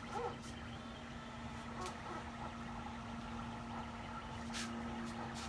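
Anet A8 3D printer running during a print: a steady hum at one pitch, with a few faint ticks.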